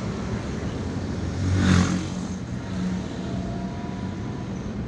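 Steady engine and road noise heard from inside a car following a loaded log truck in traffic. A louder rush of noise swells and fades about one and a half to two seconds in.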